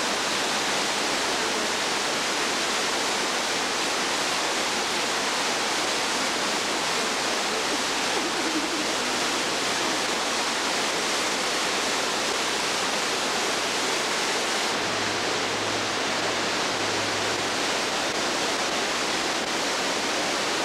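Steady rush of Dunn's River Falls, water cascading down its rock terraces.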